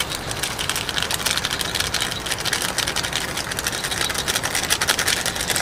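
Small plastic seasoning sachet crinkling and crackling as it is torn open and squeezed out over a bowl, with a low steady rumble underneath.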